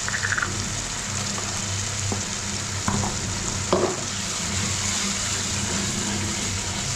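Spice masala sizzling as it fries in oil in a pan, with a few clinks and scrapes of a spoon against the pan as it is stirred, about three seconds and four seconds in.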